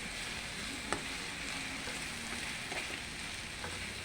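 Garlic frying in oil in a pan, a steady sizzling hiss, with one sharp click of a utensil against the pan about a second in.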